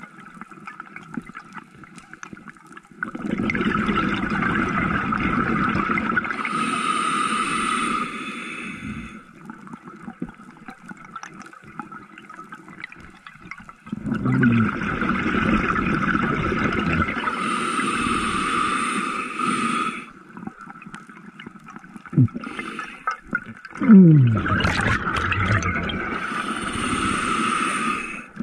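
A scuba diver breathing underwater through a regulator: three long exhalations of rushing, bubbling air, each about five seconds, with quieter inhales between them. A few short gurgles fall in pitch just before and at the start of the last exhale.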